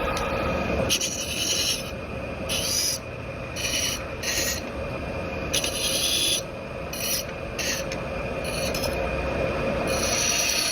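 Wood being rubbed down by hand with an abrasive, a series of short, irregular scraping strokes that turn into steadier scraping near the end.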